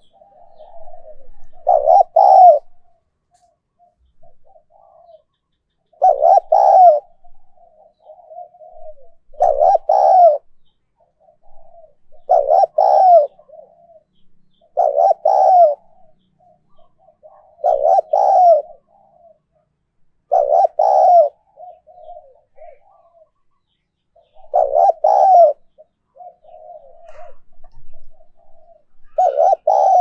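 Spotted dove cooing: a loud cooing phrase repeated every two to four seconds, with softer, shorter coos between the phrases.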